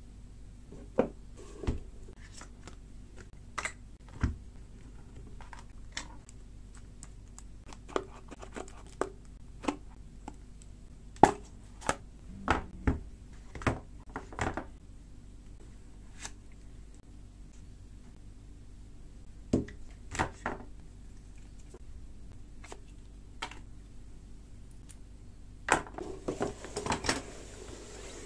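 Unboxing handling noise: scattered taps and clicks as a smartphone, a cardboard box and its contents are picked up and set down on a table, with a short run of card rustling and scraping near the end. A steady low hum runs underneath.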